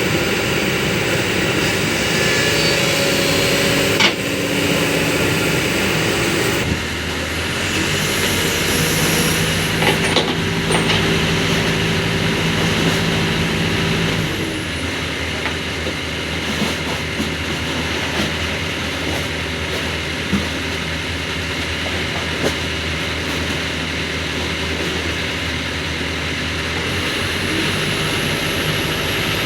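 Kobelco SK200 excavator's diesel engine running under changing hydraulic load, its note shifting about a quarter of the way in and again about halfway through, with a few sharp metallic knocks.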